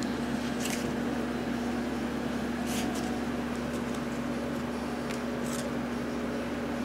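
Steady low machine hum, such as a fan or heater running in the room, with a few short rustles of handling.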